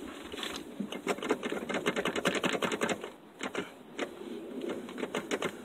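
A fast run of sharp metallic clicks, about eight to ten a second, lasting about two seconds, then a few scattered clicks: hand-tool work on a pickup's clutch master cylinder as it is being worked loose from the firewall.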